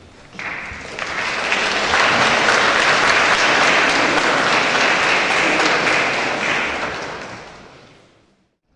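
Congregation applauding: the clapping starts about half a second in, holds strong for several seconds, and fades out near the end.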